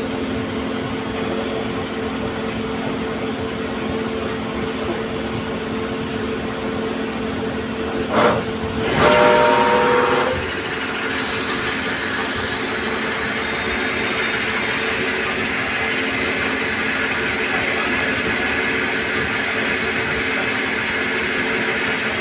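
CNC lathe running while turning a shaft, a steady machine hum under a noisy cutting sound. About eight seconds in there is a brief louder burst with several ringing tones, and after it the cutting noise grows a little brighter.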